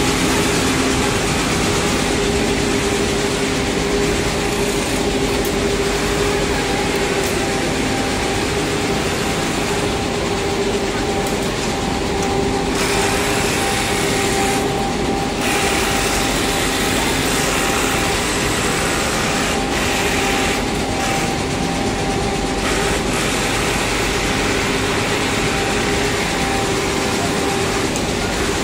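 Steady running noise of quilt-factory machinery, among them high-speed quilting machines: an unbroken mechanical din with a steady humming tone.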